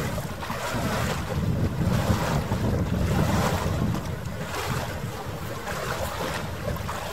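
Wind buffeting the microphone: a gusty low rumble, strongest between about one and four seconds in, over harbour water noise. The audio is sped up nearly threefold.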